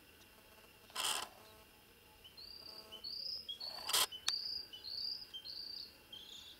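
A small songbird repeating short high chirps about twice a second, starting about two seconds in. Two brief noisy rasps break in, one about a second in and a louder one near four seconds, followed by a single sharp click.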